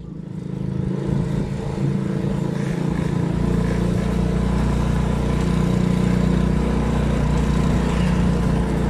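Small motorcycle engine running at a steady cruising speed, with road and wind noise, rising in over the first second.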